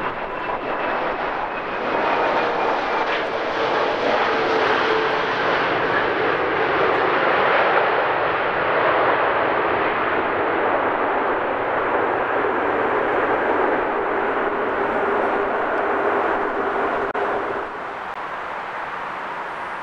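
Airbus A340-600 jet engines on the landing rollout just after touchdown: a loud, steady jet roar that swells about two seconds in. A faint whine slowly falls in pitch beneath it, and the roar drops off suddenly near the end.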